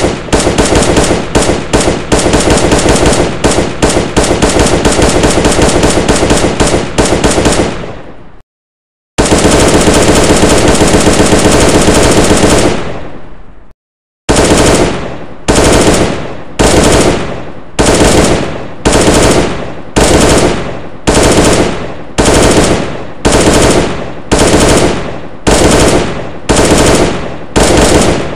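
Automatic gunfire sound effects: about eight seconds of rapid fire that dies away, a brief pause, then another long unbroken stretch of fire. After a second pause come short bursts of automatic fire, each ending in a fading tail, repeated a little more than once a second.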